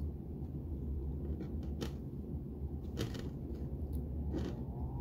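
Hands working the branches of a Chinese elm bonsai: three sharp clicks about a second apart, with a few fainter ticks before them, over a steady low hum.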